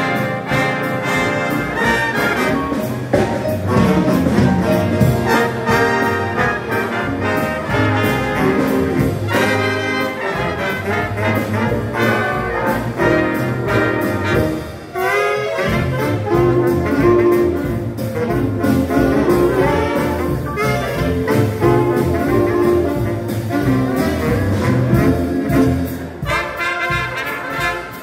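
A live big band playing jazz, with the saxophone section, trumpets and trombones together. The music dips briefly about halfway, then carries on at full level.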